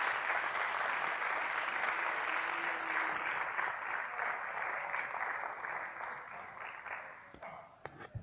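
Audience applauding: many hands clapping together, thinning out and dying away near the end to a few last claps.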